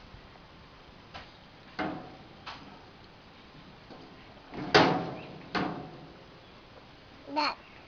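Stainless steel gas grill cabinet doors knocking and rattling as a toddler tugs at the handles while the doors are held shut: about five metal knocks, the loudest about five seconds in, each ringing briefly. A baby's short vocal sound near the end.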